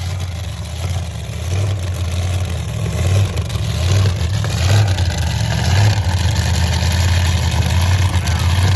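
Vehicle engine running at low speed, a deep uneven rumble that grows louder over the first few seconds and then holds steady.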